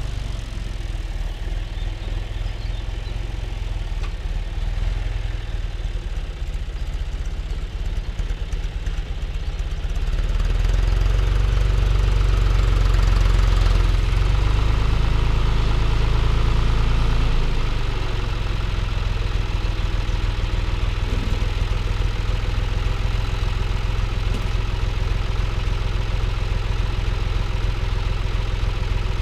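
Tractor diesel engine running steadily while plowing. It grows louder about ten seconds in and eases back a little at about seventeen seconds.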